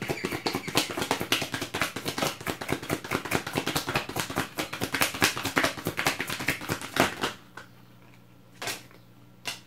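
A tarot deck being shuffled by hand: a fast, dense run of papery card clicks that stops about seven seconds in. Two single card clicks follow near the end.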